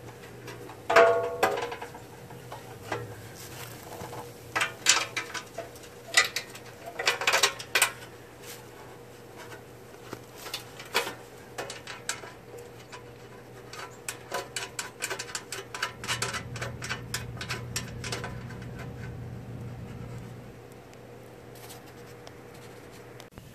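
Irregular knocks, taps and rattles of hands working at a riding lawn mower's body panel. The loudest knock comes about a second in, and a quick run of small clicks follows in the middle, over a faint steady hum.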